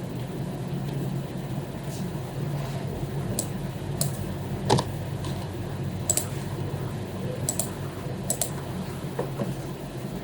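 Scattered, unhurried clicks from an HP membrane keyboard and a computer mouse: single key and button presses about a second apart, some in quick pairs, one louder click about halfway. A steady low hum runs underneath.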